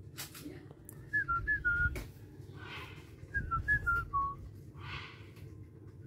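Whistling: two short phrases of four or five clear notes each, stepping downward in pitch, about two seconds apart.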